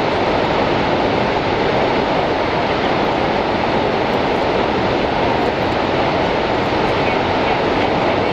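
The American Falls at Niagara: a loud, steady rush of falling water, unbroken throughout.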